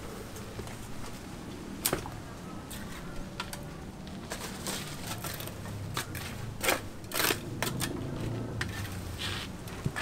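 Scattered light taps, clicks and short scrapes of a mason's hand tools working on brick and mortar, with a cluster of longer scrapes in the second half, over a steady low background hum.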